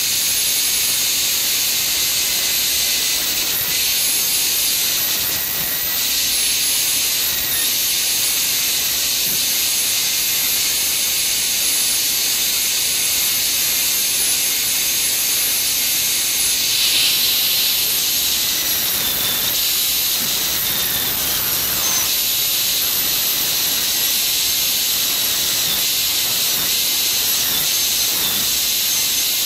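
High-speed air-turbine dental handpiece with a tapered diamond bur, running with a steady high-pitched whine and hiss as it grinds down the buccal cusp of a model lower molar during a crown preparation.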